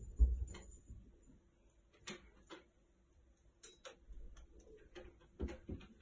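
Scattered light clicks and taps, with a low thump just after the start.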